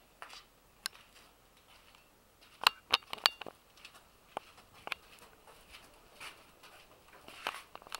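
Scattered sharp clicks and clinks, loudest in a quick cluster about three seconds in, one of which rings briefly; a few more come near the end.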